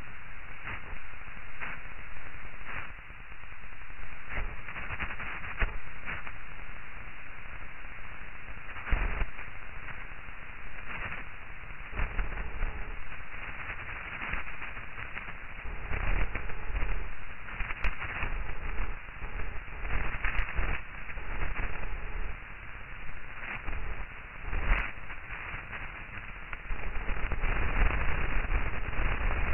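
Crackling static hiss that swells and fades, with scattered sharp clicks and pops, like a radio between stations.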